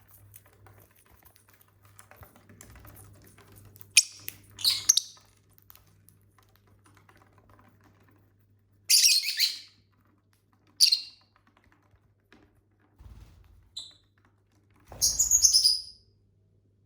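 Pet lovebirds giving short, shrill chirps, about half a dozen spaced out over several seconds, the last one longer and the loudest. Faint light tapping runs in between during the first few seconds.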